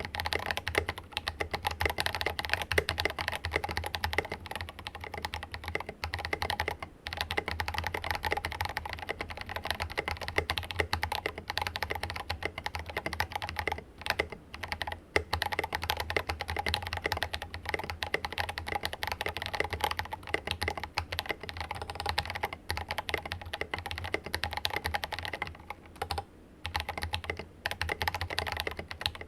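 Steady, fast typing on a silicone-mounted Rama Works Kara mechanical keyboard with lubed Drop Invyr Holy Panda R2 tactile switches and ABS keycaps: a dense run of keystrokes broken by a few brief pauses.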